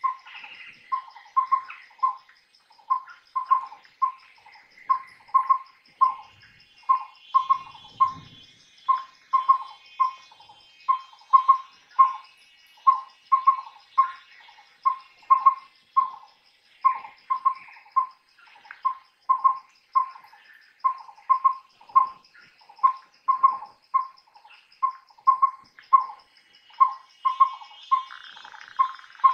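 Collared owlet (Taenioptynx brodiei) whistling its mellow hooting song: short groups of notes repeated about once a second without a break. A steady high insect buzz and faint chirps of other birds run underneath.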